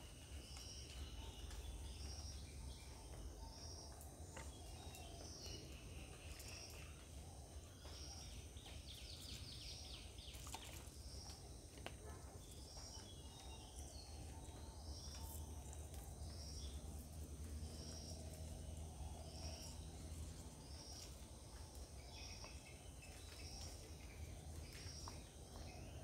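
Faint garden ambience of insects and birds: a high chirp repeats evenly about every three-quarters of a second over a faint steady high trill, with short bird chirps scattered through, a small flurry of them about ten seconds in.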